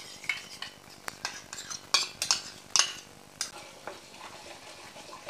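Irregular clinks and scrapes of a spoon stirring whisked yogurt in a steel bowl. The yogurt is then stirred with a spatula into hot onion-tomato masala in a kadai, which sizzles softly.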